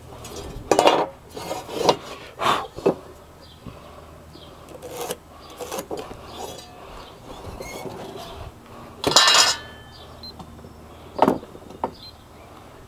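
Scattered knocks and metallic clinks from tools and hardware being handled, about eight in all at uneven spacing. The loudest comes about nine seconds in and rings briefly.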